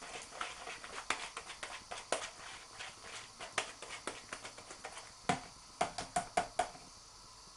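Wire whisk beating a thick flour-and-water batter in a glass bowl: fast, irregular clicking and scraping of the wires against the glass. Near the end come five louder knocks on the bowl, then the whisking stops.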